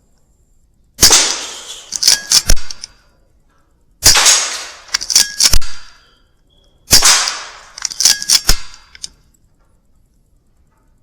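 Weihrauch HW100 .22 pre-charged air rifle firing three shots about three seconds apart. Each shot is followed about a second later by a quick run of sharp clicks.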